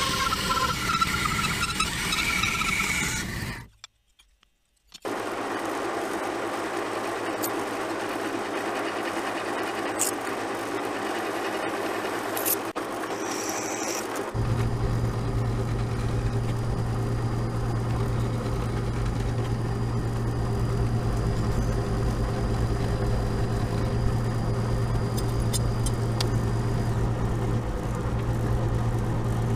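Drill press motor running steadily with a deep hum while it drills holes through wooden knife-handle scales, starting about halfway in. Before that, after a brief silence, a quieter steady workshop noise.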